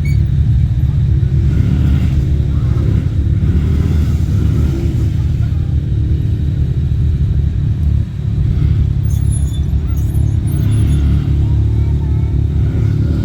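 ATV engine running steadily at close range, a loud low drone that dips briefly about two-thirds of the way through.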